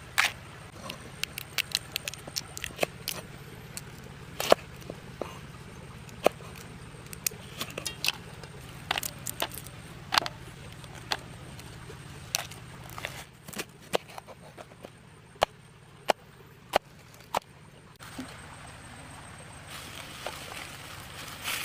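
Irregular sharp clicks and cracks of raw crab shells being broken apart and handled by hand, over a faint low hum. Near the end the clicking comes thicker and louder.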